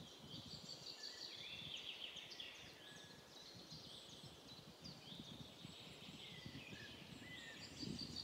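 Faint birdsong: many short chirps and trills from several small birds, over a faint low rumble.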